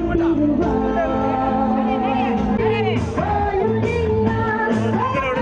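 Song with singing over instruments and a steady beat.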